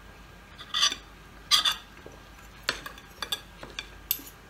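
Fork and spoon on ceramic plates: two louder short scrapes about a second in, then a run of light clinks and taps of metal cutlery against a plate.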